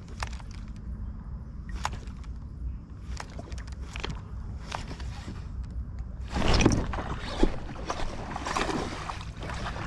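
Handling noise in a fishing kayak while a baitcasting reel is worked: a steady low rumble with scattered light clicks. About six seconds in, a sudden louder rush of noise begins and stays busier.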